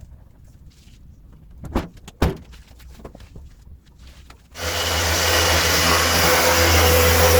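Two sharp knocks, then about four and a half seconds in an electric power tool starts abruptly and runs with a steady whirring hiss over a low hum.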